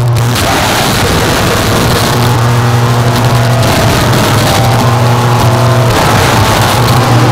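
Harsh noise music: a loud, dense wall of static with a low steady hum underneath that drops out and comes back every second or two.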